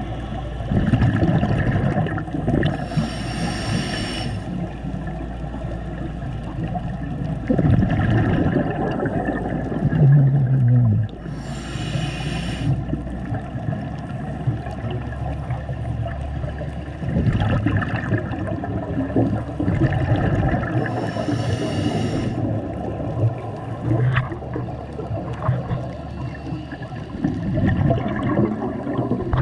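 Scuba regulator breathing heard through an underwater camera housing: a bubbling exhale rush three times, about every nine seconds, over a steady muffled underwater rumble. A brief low hum sounds about ten seconds in.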